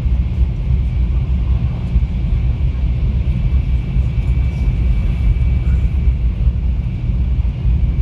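Steady, loud low rumble with a thin, unchanging high whine above it.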